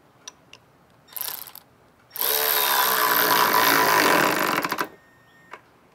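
Milwaukee M12 cordless 3/8-inch ratchet running for about two and a half seconds as it drives a hex-head lag screw into a wooden beam, then stopping with the screw still not fully seated: the ratchet cannot drive it any further. A short burst of the tool comes about a second before the main run.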